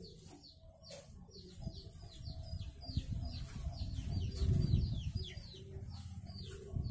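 A small bird chirping over and over: short high notes, each falling in pitch, about three a second. Under it runs low handling noise, loudest about halfway through.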